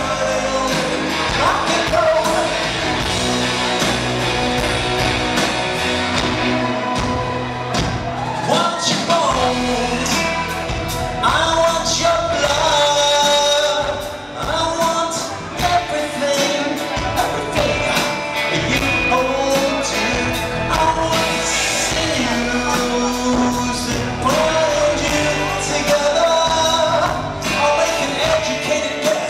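A rock band playing live, with electric guitars, bass guitar and drums under a male lead vocal, in the reverberant sound of a large hall.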